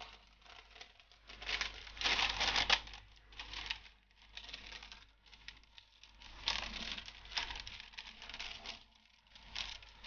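Scissors cutting through a sheet of baking paper, the paper crinkling and rustling as it is handled, in irregular bursts with short pauses.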